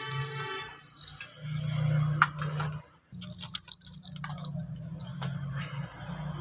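Scattered light metallic clicks and rattles as a motorcycle timing chain and a steel wire are handled and pulled through the engine, over a steady low hum.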